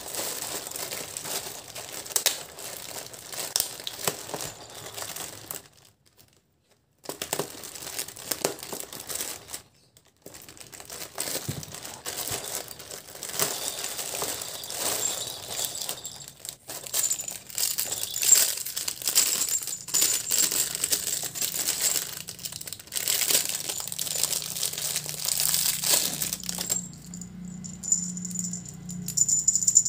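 Clear plastic wrapping crinkling and rustling as a parcel is unwrapped by hand and its bagged contents are handled, with two short pauses.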